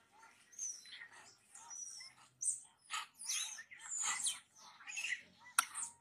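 High-pitched animal calls: quick chirps and squeaks, several a second, some sliding up or down in pitch. A single sharp click sounds near the end.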